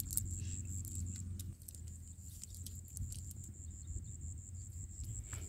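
Soft scattered clicks and rustles of a cast net being picked through by hand, with shells and small fish clicking as they are worked out of the mesh. Under it run a steady high-pitched tone and a low rumble that drops away about a second and a half in.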